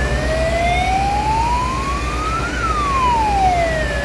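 An emergency-vehicle siren wailing slowly: it rises for about two and a half seconds, falls, and starts to rise again near the end. A steady low drone runs underneath.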